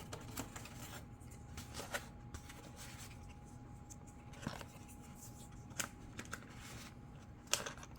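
Hands handling and fitting the plastic parts of an RC model jet: scattered light clicks and rustles, the sharpest near the end, over a faint steady hum.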